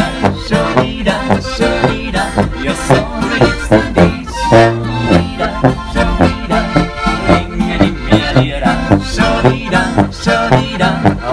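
Alpine folk music played live on diatonic button accordion (Steirische Harmonika), with tuba bass and acoustic guitar strumming, in a steady, bouncy beat.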